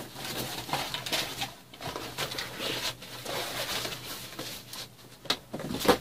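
Rustling and handling of unboxing packaging: a fabric carrying bag and foil-wrapped parts moved about in a cardboard box, with one loud sharp rustle just before the end.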